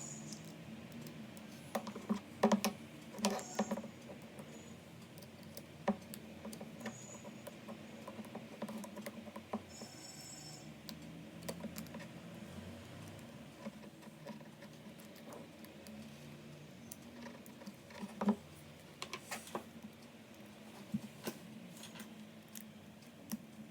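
Small hard plastic and metal parts clicking and tapping as they are handled and fitted together by hand, in irregular clusters over a faint steady hum, with a brief high squeak about ten seconds in.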